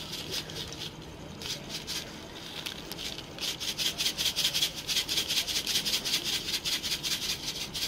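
Cumin seeds sizzling in hot oil: a few scattered pops, then from about three seconds in a dense, rapid crackle as the seeds hit the oil.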